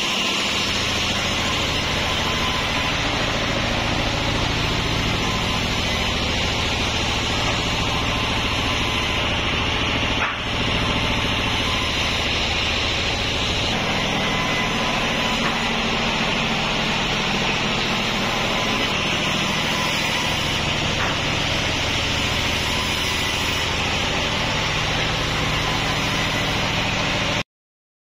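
Steady drone of sawmill machinery running, with a strong hiss over a low hum. It dips briefly about ten seconds in and cuts off abruptly near the end.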